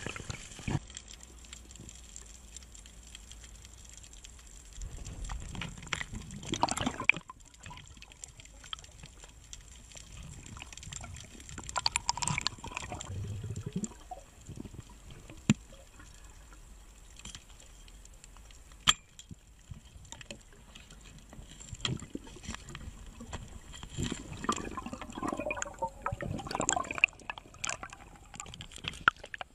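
Water sloshing and splashing in irregular bursts, with scattered small clicks and knocks between them.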